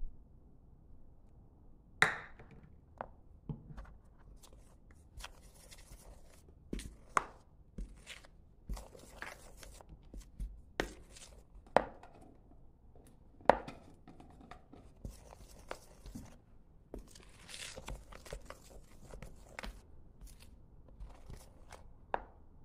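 Wooden spoon stirring dry flour in a mixing bowl: irregular sharp knocks and taps of the spoon against the bowl, turning into a steadier scraping rustle of spoon through flour in the second half.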